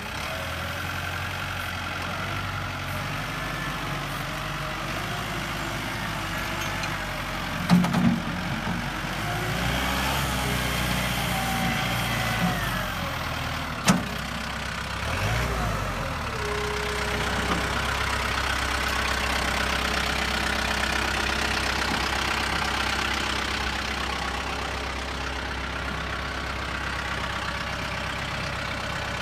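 Kubota M7060D tractor's four-cylinder diesel engine idling steadily, with a sharp knock about eight seconds in and another about fourteen seconds in.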